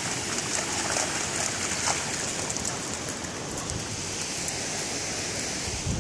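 Shallow creek water rushing steadily over limestone ledges, with splashing in the first couple of seconds as a Doberman puppy runs through the shallows.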